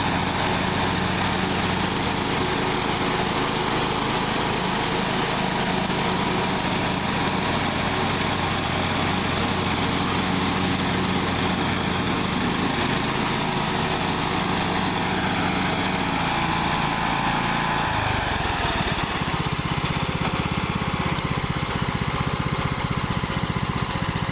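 Engine of a John Deere LA115 riding lawn mower running steadily. Its 19.5 hp Briggs & Stratton engine note drops in pitch about three-quarters of the way through, as the engine slows.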